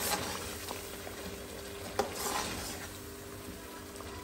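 Chicken, tomato and yogurt masala frying in a stainless-steel karahi and being stirred with a metal spoon: a steady sizzle with the spoon scraping through it. The spoon knocks sharply against the pan once about two seconds in.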